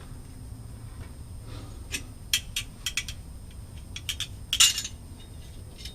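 A run of light metallic clinks and taps from exhaust clamp hardware and pipe parts being handled, starting about two seconds in, with the loudest clink near the end.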